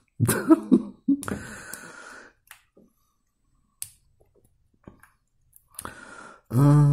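A few faint, isolated clicks of small plastic building bricks being handled and turned in the fingers. A short vocal sound comes just after the start, and a man starts humming a steady note near the end, both louder than the clicks.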